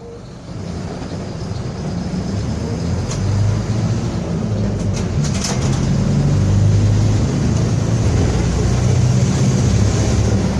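Mercedes-Benz OF-1721 city bus running, a low diesel drone that grows louder over the first several seconds and then holds steady, with a growl the recording attributes to a noisy differential. A few sharp clicks or rattles come around three and five seconds in.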